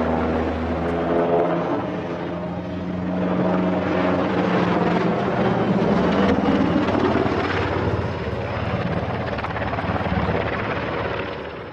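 NH90 helicopter passing low overhead and flying away. A steady engine hum with rotor noise gives way to a broader rush that fades out near the end.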